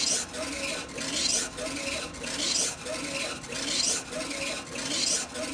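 Funsun DTF printer's print-head carriage shuttling back and forth across the film while printing, a rasping whir that rises with each pass, about every two-thirds of a second.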